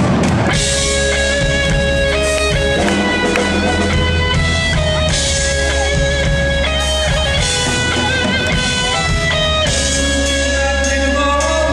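Live rock band playing an instrumental passage, electric guitar to the fore over a steady bass.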